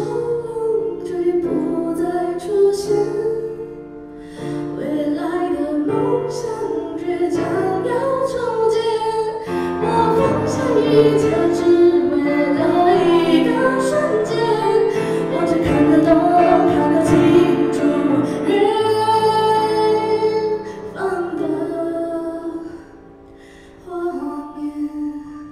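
A woman singing a Mandarin ballad, accompanying herself on a grand piano. Near the end the voice stops and a piano chord sounds on its own.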